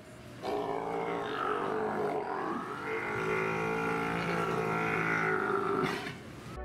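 Sea lions calling: a long, deep, drawn-out call with many overtones that bends in pitch, dips briefly about two seconds in, and stops about six seconds in.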